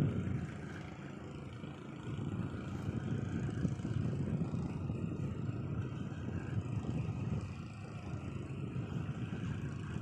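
Steady low engine rumble aboard a boat.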